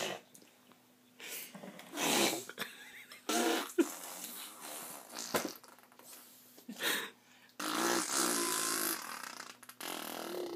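Baby girl making a series of short sputtering noises with her mouth and nose, separate bursts with pauses between and a longer one about eight seconds in.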